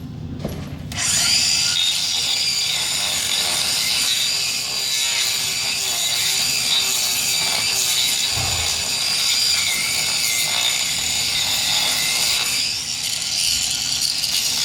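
Power grinder grinding down a horse's hoof, a steady abrasive grinding noise that starts about a second in, with a low thud about eight seconds in.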